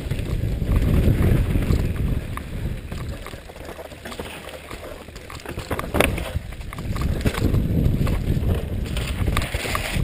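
Mountain bike descending over rock and dirt, heard from a helmet-mounted camera: low wind and tyre rumble, with scattered rattles and knocks from the bike and a sharp knock about six seconds in.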